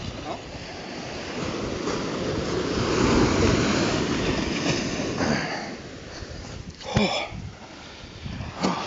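Wind rushing over the microphone and surf washing on a beach, swelling over the first few seconds and then easing off, with a short sound falling in pitch about seven seconds in.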